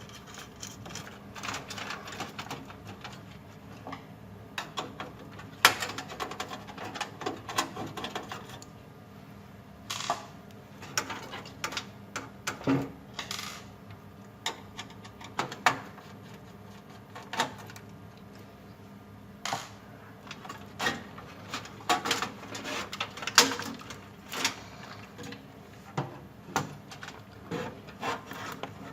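Irregular clicks, taps and small knocks of tools and small metal parts being handled on a workbench during computer motherboard repair work, over a faint steady hum.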